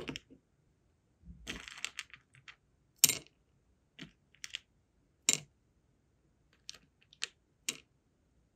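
Wax sealing beads being picked with tweezers from a plastic compartment box and dropped into a metal melting spoon: a series of separate sharp clicks and light clatters. A short rattle of beads comes about a second and a half in, and the loudest clicks come about three and five seconds in.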